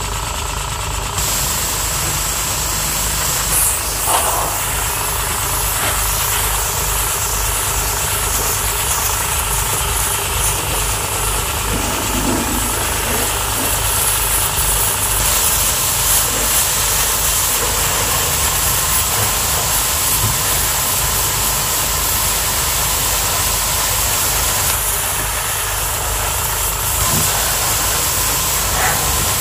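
High-pressure car-wash pump running steadily with a pulsing low drone, under the continuous hiss of its water jet spraying a van's wheel and wheel arch.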